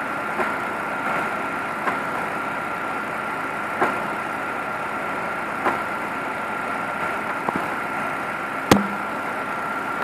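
Car engine idling in the engine bay with the AC compressor running, a steady hum with a steady high tone over it. A few light clicks, one sharper click near the end.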